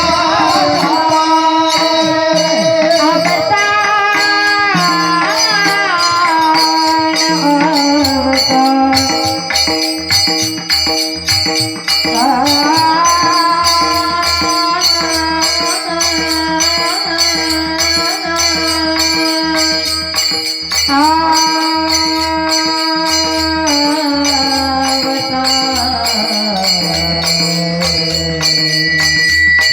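A woman singing a long, drawn-out devotional melody with sliding, ornamented held notes, over a drum beating low regular strokes and jingling percussion keeping time.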